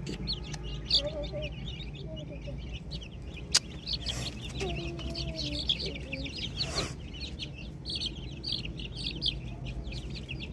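Chicks peeping continuously, a dense chorus of short high cheeps, with a single sharp click about three and a half seconds in.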